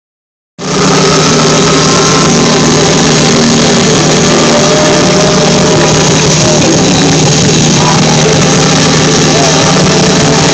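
Loud amplified live funk music, holding one steady level with a sustained low note underneath and thin higher notes that slide in pitch near the end. It cuts in abruptly about half a second in.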